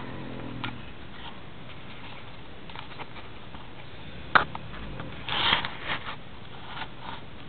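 A man's snore trailing off in the first second, then a pause between snores with scattered clicks and rustling: a sharp click about four seconds in and a short breathy rustle soon after.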